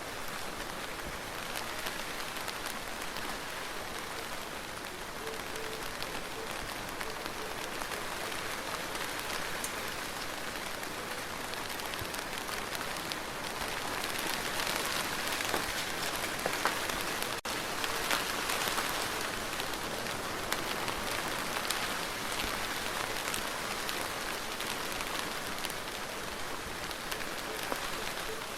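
Steady rain falling, with scattered sharp drop ticks through the hiss; it grows a little heavier for several seconds in the middle.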